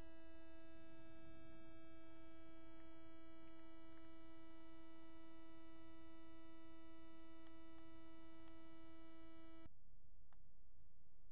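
A faint, steady electronic whine at one pitch with overtones from the landed DJI Phantom 2 quadcopter, with a few faint ticks. It cuts off suddenly near the end.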